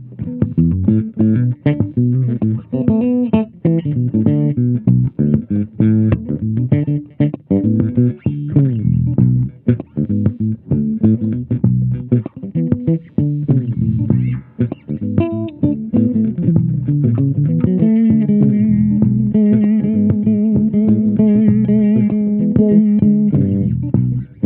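Cunningham RLJ6 headless electric bass played solo: a run of quick plucked notes, then a single note held with vibrato for about five seconds near the end, before the playing picks up again.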